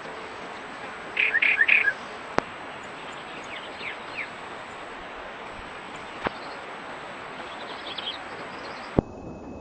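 Wild songbirds chirping over a steady outdoor hiss. A quick burst of short, falling chirps comes about a second in, with fainter chirps later. A few sharp clicks are heard, and the background changes abruptly near the end.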